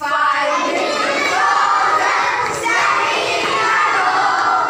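A large group of young children shouting together, many voices at once in a loud, steady din.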